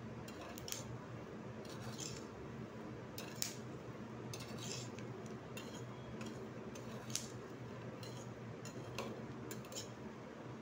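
Metal spoon stirring peanuts as they dry-roast in a frying pan: irregular scrapes and clicks of the spoon against the pan, with the nuts shifting.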